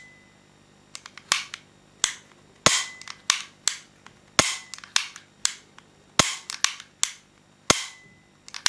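Beretta PX4 Storm 9 mm pistol dry-fired several times: loud sharp metallic snaps of the hammer falling, a second or so apart, with quieter clicks of the trigger working and resetting between them.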